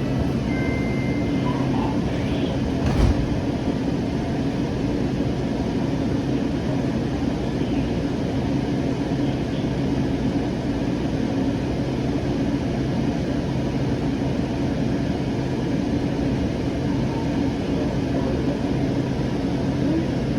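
Siemens S700 light rail car running between stations, heard from inside: a steady hum of motors and wheels on the rails. One low thump comes about three seconds in.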